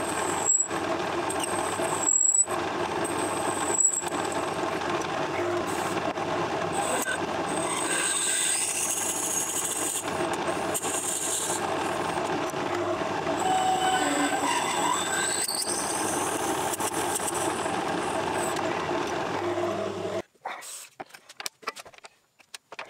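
Metal lathe running while a twist drill is fed into a spinning brass workpiece in a four-jaw chuck: a steady machine hum with high squeals from the cut now and then. About twenty seconds in the lathe stops abruptly, leaving a few light clicks.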